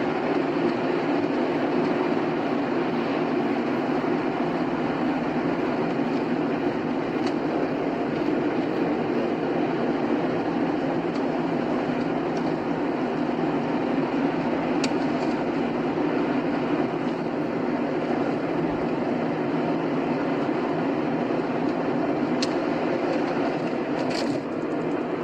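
Car driving steadily at highway speed: an even rush of tyre, engine and road noise, with a few faint ticks in the second half.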